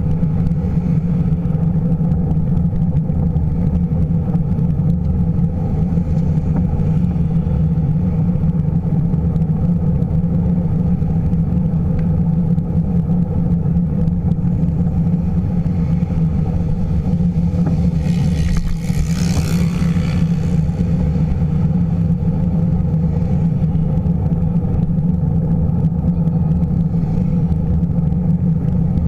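Steady low rumble of riding a bicycle with an action camera: wind on the microphone and road vibration, with car traffic passing alongside. A brief hiss swells and fades about two-thirds of the way through.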